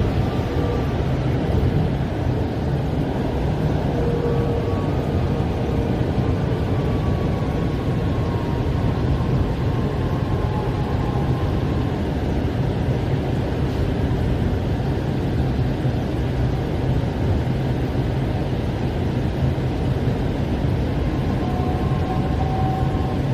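Mumbai Metro Line 7 train running, heard from inside the carriage: a steady low rumble with faint whining tones that come and go and slide slowly in pitch.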